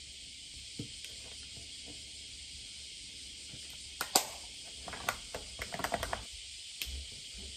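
Steady high hiss. From about four seconds in, a run of sharp small clicks and rustling as a plastic cosmetic case is handled and a fabric makeup pouch is rummaged through; the loudest click comes just after the case is picked up.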